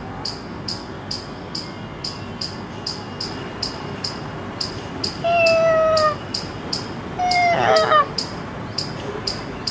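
A person imitating a cat's mating call: two drawn-out meow-like calls. The first, about five seconds in, is held and slowly falls; the second, about seven seconds in, wavers. A high-pitched chirp pulses steadily underneath, a little more than twice a second.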